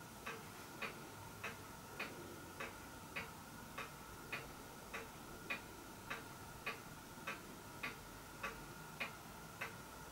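Faint, steady ticking, a little under two ticks a second, alternating stronger and weaker like a tick-tock, over a faint steady hum.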